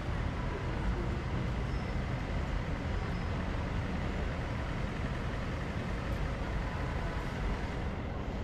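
Steady city street traffic noise: a continuous low rumble of passing vehicles, with no single event standing out.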